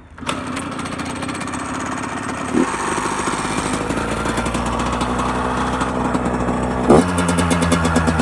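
2002 Yamaha YZ85 two-stroke dirt bike engine, bored out to 105 with an FMF shorty exhaust, starting suddenly and then running, with two quick blips of the throttle about two and a half and seven seconds in, idling higher after the second. A rattling in it comes from a loose bolt.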